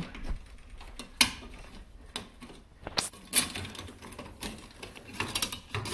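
Irregular metal clicks and knocks of T-bolt clamp hardware being handled and fitted by hand, a bolt being fed through the clamps, with a quicker cluster of clicks near the end.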